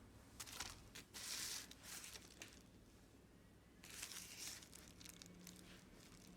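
Faint rustling and handling noises, a cluster about a second in and another around four seconds in, over low room hum.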